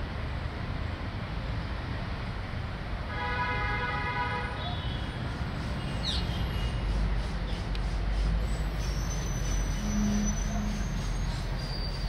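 Steady city traffic rumble. About three seconds in, a pitched horn-like call lasting over a second; a brief falling whistle about six seconds in; two short low hoots near the ten-second mark.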